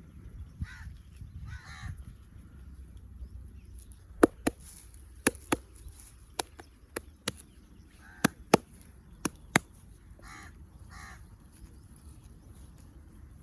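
A crow cawing several times in short calls. Midway comes a run of about ten sharp slaps or claps, the loudest sounds heard.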